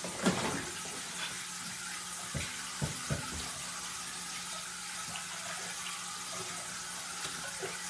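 Chicken livers frying in a pan of oil with a steady sizzle. A few light knocks come in the first three seconds.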